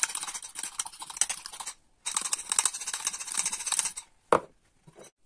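Fork beating egg yolks in a small bowl: rapid clinks and scrapes of the tines against the bowl, in two runs with a short break about two seconds in. The beating stops about four seconds in, followed by a single knock.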